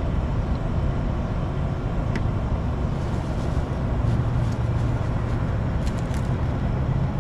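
Steady road traffic noise, a low rumble that swells a little as a vehicle passes about four seconds in.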